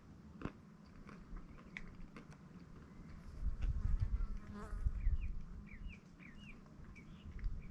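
An insect buzzing briefly past about halfway through, followed by a run of short high chirps, over low rumble and a few small clicks.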